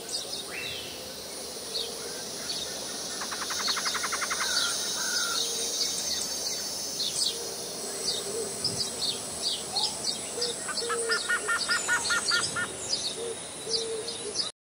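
Birds chirping and calling, many short high chirps throughout, with a quick run of repeated notes about four seconds in and another around eleven seconds; a steady high insect hiss underneath.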